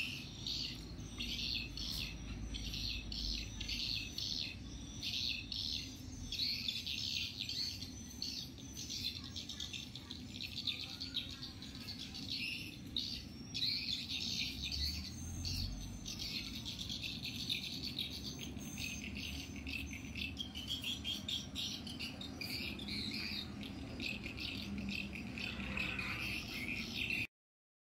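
Insects chirping in a dense, rapidly pulsing chorus, with bird chirps mixed in, over a faint low rumble. The sound cuts off abruptly near the end.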